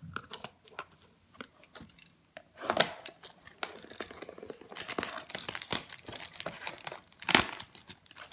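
Clear plastic shrink-wrap on a cardboard trading-card box being slit with a box cutter and torn, crinkling and crackling, with two louder bursts about three seconds in and about seven seconds in.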